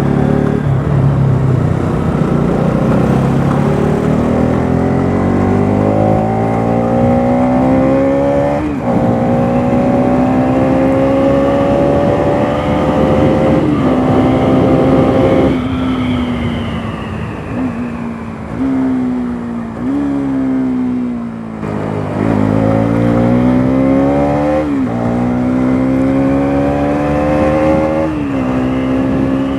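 Bajaj Pulsar NS200's single-cylinder engine pulling hard, its pitch climbing steadily and dropping sharply at each upshift. About halfway it slows, with the pitch falling and jumping up briefly a few times as it shifts down, then it climbs through the gears again.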